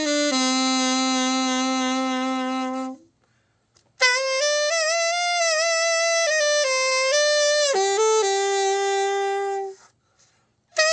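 Soundmax ASM-500UL alto saxophone played solo: a slow melody of long held notes with vibrato, in two phrases, each ending in a short silence, the first about three seconds in and the second near the end. It is the play-test of the overhauled horn.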